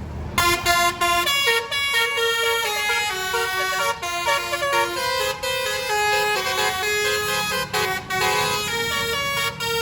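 Bus telolet basuri horn playing a tune of stepped notes, starting suddenly about half a second in.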